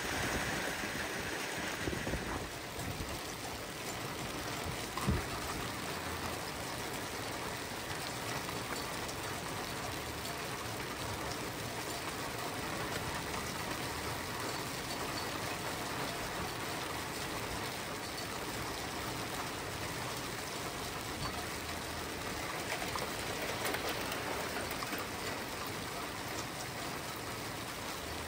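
Hail mixed with heavy rain pelting wet asphalt, a dense steady hiss and patter, with one sharper knock about five seconds in.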